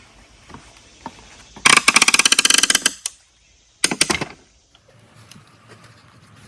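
Wooden pallet boards being pried apart with a pallet breaker: a burst of rapid rattling knocks about a second long, then a shorter one about a second later.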